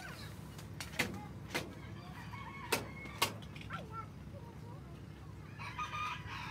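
Chickens clucking and calling, with a louder run of calls near the end. Several sharp taps, about five in the first few seconds, come from the steel tines of a raking tool striking the dirt.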